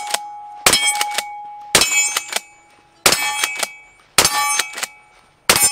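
Remington 870 DM Magpul 12-gauge pump-action shotgun firing double-aught buckshot, five shots about a second and a quarter apart. Each shot is followed by the ringing of the struck steel targets, with smaller clacks from the pump being worked between shots.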